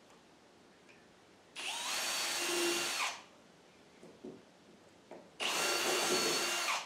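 Cordless drill with a small bit drilling through the edge of a thin plywood boat panel, twice, each time for about a second and a half, its motor whine rising as it spins up. These are the stitch holes for wiring the side panel to the bottom in stitch-and-glue construction.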